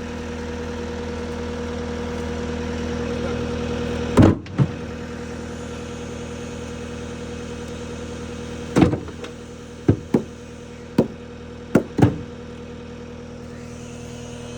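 Engine idling steadily on a construction site, with sharp bangs over it: a pair about four seconds in, then six more spaced irregularly through the second half.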